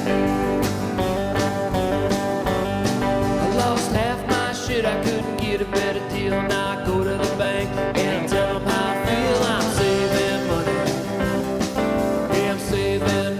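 Background music: a country-style song with guitar, a steady beat and singing.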